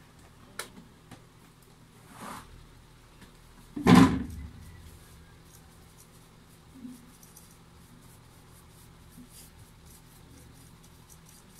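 Small brush scratching and ticking over a laptop's cooling fan and heatsink to loosen packed dust, with one loud thud about four seconds in.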